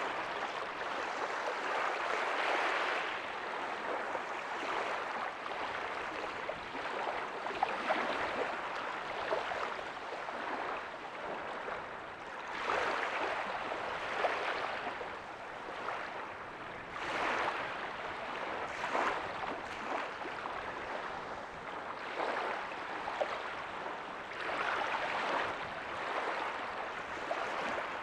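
Small waves breaking and washing up a beach, a steady hiss of surf that swells with each wave every few seconds.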